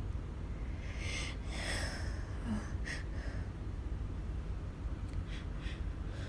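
A woman sniffling and breathing between allergy sneezes, a tickle from household dust, with short breaths about a second in and again near the end, over a steady low hum.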